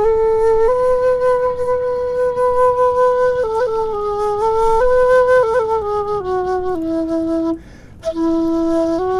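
Bamboo bansuri flute, its finger holes freshly burned, played in single held notes stepping up a short scale, back down, and starting up again after a quick breath near the end. It is a tuning check, and the flute is coming out well in tune without needing correction.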